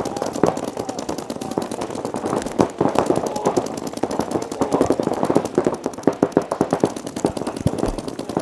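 Paintball markers firing rapid strings of shots, with several guns going at once in overlapping volleys.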